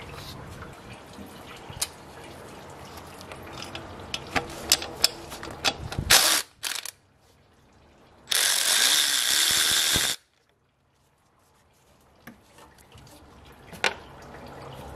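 Cordless electric ratchet running, in a short burst about six seconds in and a steadier run of about two seconds a little later, spinning loose the fasteners on the engine's thermostat housing. Before that, light clicks and knocks from handling the hose and parts.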